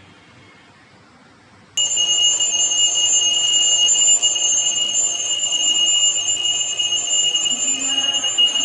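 Seiko QHK028A bedside alarm clock's alarm going off: a steady high electronic tone that starts suddenly about two seconds in and keeps sounding.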